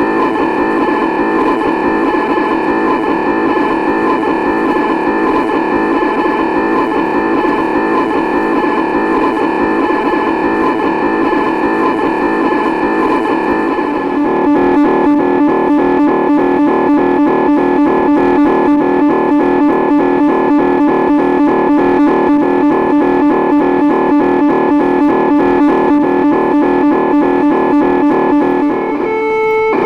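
LEO (Lyons Electronic Office) computer sound-effect recordings: a steady cluster of held electronic tones, which about halfway through switches to a rapid, evenly pulsing pattern of tones.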